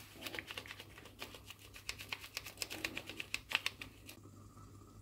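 A paper sachet of ground cinnamon tapped and shaken over a frying pan, giving a string of light, irregular ticks that stop about four seconds in.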